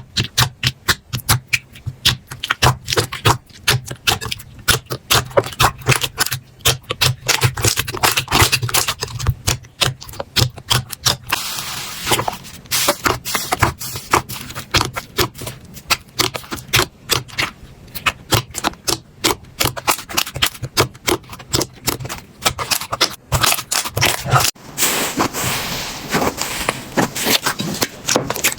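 Slime being squeezed, pressed and stretched by hand, giving a dense run of sharp sticky clicks, pops and crackles. The texture changes about twelve seconds in and again about twenty-four seconds in.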